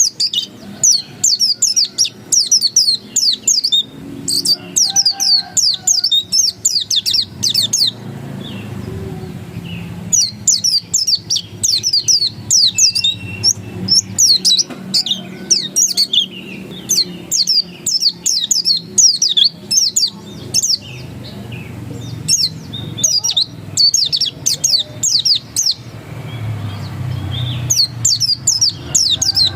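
Pleci dakun white-eye singing insistently: long runs of rapid, high, down-slurred notes, repeated in several bouts with short pauses between them.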